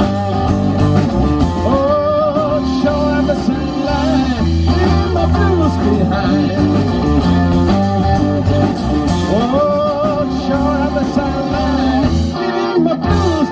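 Live blues band playing: electric guitar, electric bass and drum kit, with a sung lead vocal. The bass and kick briefly drop away near the end.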